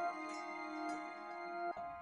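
Quiet background music of held, chime-like tones, changing chord near the end.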